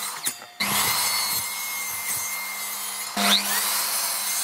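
Miter saw running and cutting through small stacked wood blocks, a steady motor hum under the noise of the cut. The sound drops away briefly about half a second in, then comes back suddenly, and jumps louder again about three seconds in.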